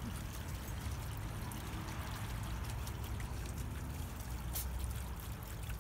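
Water trickling and pouring steadily from a small garden waterfall.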